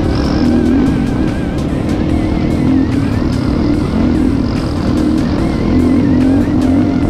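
Background music with a beat, mixed over an ATV engine running.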